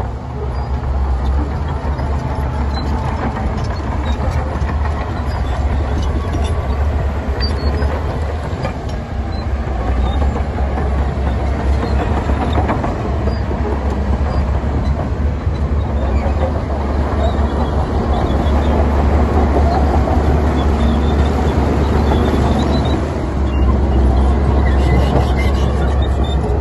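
Heavy diesel earthmoving machinery running under load with a deep, steady engine rumble, growing a little louder in the second half.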